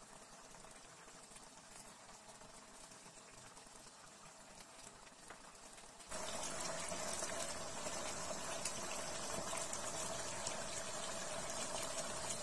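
Chicken feet in coconut-milk sauce simmering in a frying pan: steady bubbling with fine crackling over a thin, steady hum. It gets clearly louder about halfway through.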